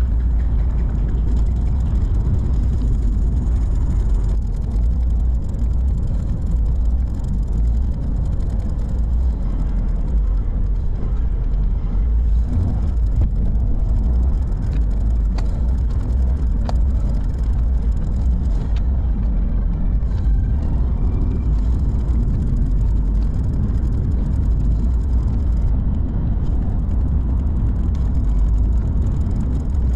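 Car driving on an open road, heard from inside the cabin: a steady low rumble of engine and tyre noise.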